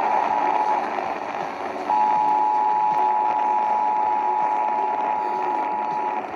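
Emergency Alert System two-tone attention signal received over a hissy radio broadcast. One tone ends under a second in, and a second tone starts about two seconds in and holds steady for about four seconds, over constant static hiss.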